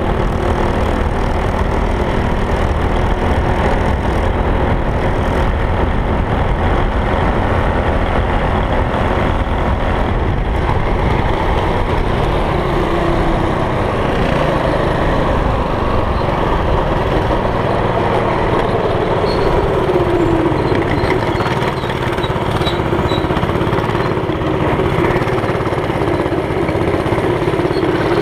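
Go-kart's small single-cylinder engine running steadily under way, its pitch shifting up and down a few times as the throttle changes.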